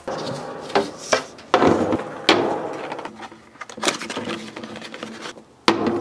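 A series of knocks and scrapes of aluminium capacitor cans being handled and set down on a tabletop, with one sharp knock near the end.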